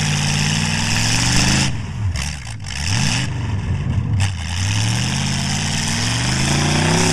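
Mud-bogging pickup's engine revving hard through open hood-mounted exhaust stacks as the truck churns through deep mud. The revs climb, then drop and surge a couple of times in the middle, then climb again to a peak near the end, over a steady hiss.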